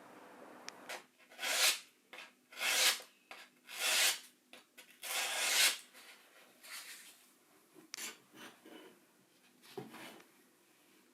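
Hand-worked abrasive strokes on a workpiece: four strong scraping strokes about a second apart, then several lighter, shorter ones.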